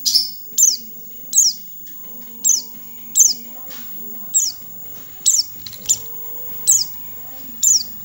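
White-eye giving short, high chirps that each drop sharply in pitch, repeated about once a second, some ten in all.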